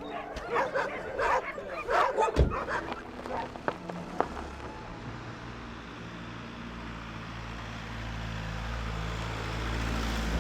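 Dogs barking and yipping for the first few seconds, with a single thump about two and a half seconds in. Then a steady engine hum takes over and grows louder toward the end.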